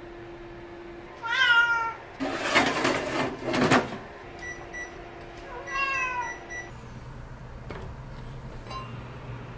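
Two short meow-like calls, one about a second in and one about six seconds in, each bending up and then falling in pitch. Between them comes a loud burst of noise lasting about a second and a half, and short high beeps sound around the second call.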